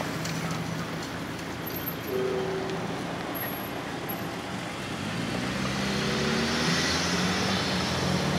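Road traffic moving off: cars pull away and accelerate, with engine tones rising and getting louder in the last few seconds, over the haze of tyre and road noise.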